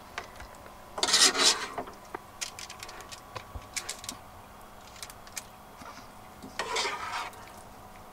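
A spoon scraping filling out of a stainless steel pot: a loud scrape about a second in and another near the end, with light clicks and taps of the spoon in between.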